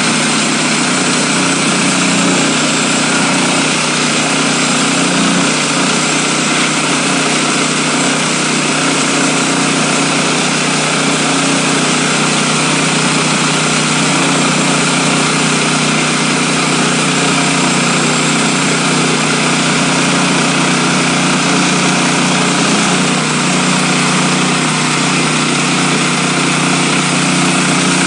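Woodland Mills HM126 portable bandsaw sawmill running steadily, its small gas engine droning evenly while the band blade mills a black walnut log.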